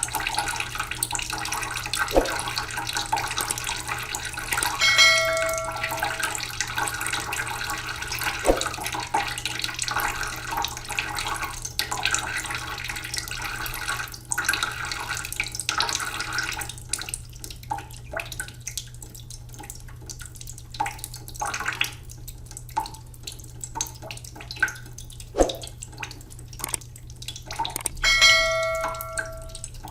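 Waterfall: water pouring and splashing steadily, with many scattered drips and splashes. Twice a short ringing tone sounds, about five seconds in and again near the end.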